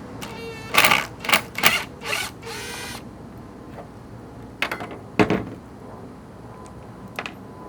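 Hand ratchet clicking in quick short runs as screws are backed out, followed by a couple of knocks from handling the mirror parts.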